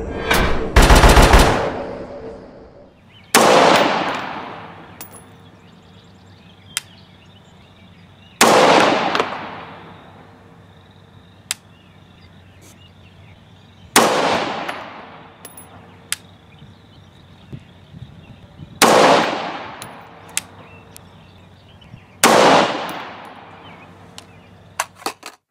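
Five single rifle shots from a Rock River Arms 20-inch AR-15 firing 5.56 NATO, spaced about four to five seconds apart, each a sharp crack with an echo trailing off over a second or more. A loud low boom sounds about a second in, before the shooting.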